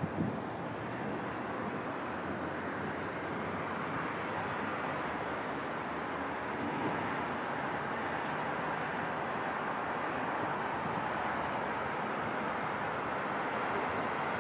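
Steady outdoor noise of a city at night, a low even hiss and rumble like distant traffic, with no distinct firework bangs.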